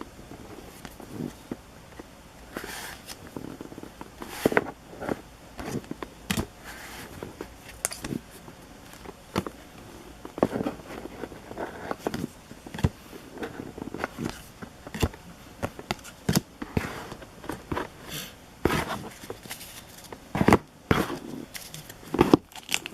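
Trading cards and packs being handled on a table: irregular small taps, clicks and light rustles.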